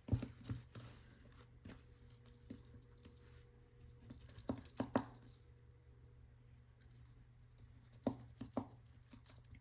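Faint handling sounds of fingers working at a knotted fine necklace chain: light rustling with scattered small clicks and ticks, a few sharper ones just after the start, around five seconds in and about eight seconds in.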